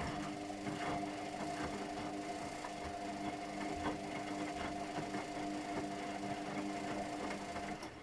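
Luxor WM 1042 front-loading washing machine tumbling its drum in a quick 30°C wash: a steady motor hum with water sloshing and scattered light knocks, until the motor cuts off near the end.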